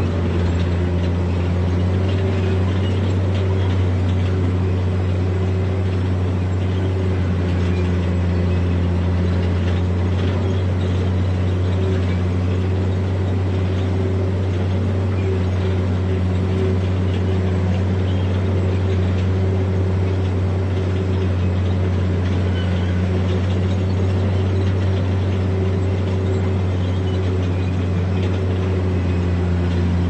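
Diesel engine of a heavy earthmoving machine running steadily at constant speed, with a low hum.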